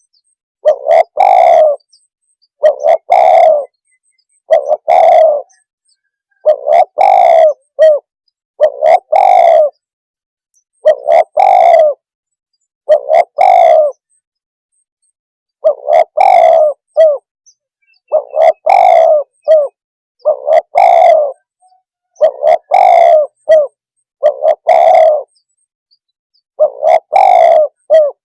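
Spotted dove (tekukur) cooing loudly, one short cooing phrase about every two seconds, with a brief pause about halfway through and another near the end.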